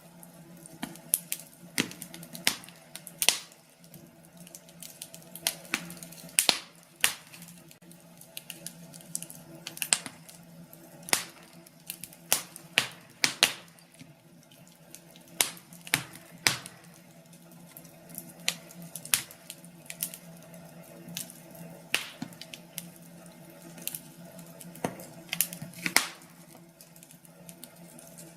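Wood fire crackling in a fireplace: irregular sharp pops and snaps, several a second, some louder than others, over a faint steady low hum.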